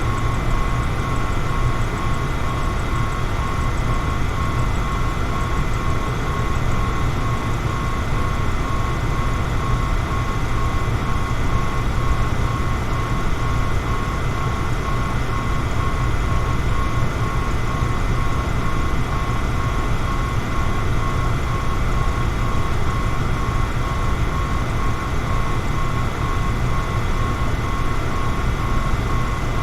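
Electric fan running steadily: an even rush of air, strongest in the low end, with a faint steady whine on top.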